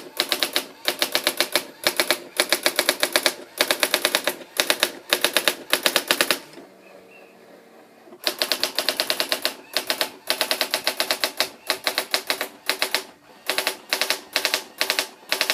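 Brother AX-600 electronic typewriter printing its built-in self-demo by itself: its daisy-wheel print head strikes in fast rattling runs of about a second each, with short breaks between them and one longer pause of about a second and a half a little before the middle.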